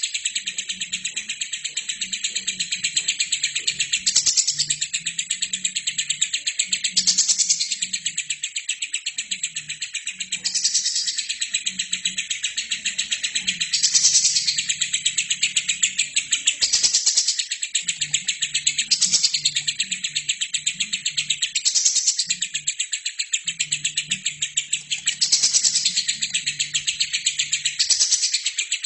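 Albino lovebird singing a long, unbroken, rapid chatter, swelling louder about every three seconds.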